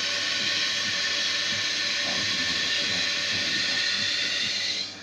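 Toilet cistern refilling after a flush, a steady hiss of water through the fill valve that cuts off near the end as the valve shuts. The bowl is clogged with sawdust.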